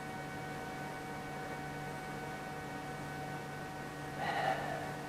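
A steady hum made of several faint, constant tones, with a brief soft sound about four seconds in.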